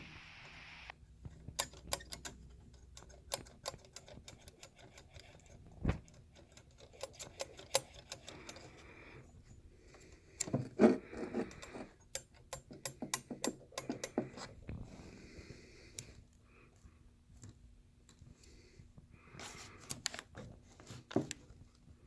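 Irregular metallic clicking and rattling as the turbocharger's wastegate arm is worked back and forth by hand, with a few louder knocks. The loose rattle is the sign of play in the wastegate linkage, which keeps the turbo from building boost (P0299 underboost code).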